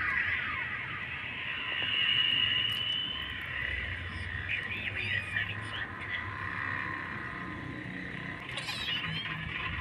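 Cat meowing among a dense, steady chorus of overlapping high-pitched calls.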